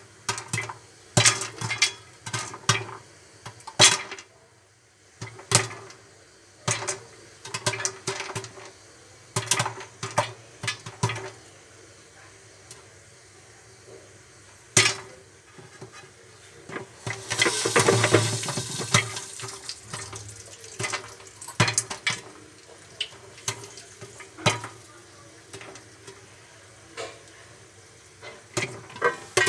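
Popcorn kernels popping in hot oil in a covered kadai: irregular sharp pops, one to a few at a time, over a faint steady hiss. About seventeen seconds in, a louder rushing noise lasts about two seconds.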